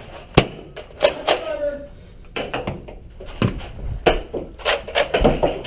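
Sharp clicks and knocks at irregular intervals, typical of Nerf foam-dart blasters being fired and primed, mixed with brief shouted voices.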